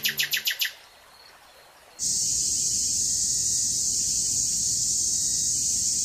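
A bird's rapid trill of short high chirps, about eight a second, ending within the first second. After a brief lull, a loud, steady high-pitched drone of cicadas sets in about two seconds in and holds.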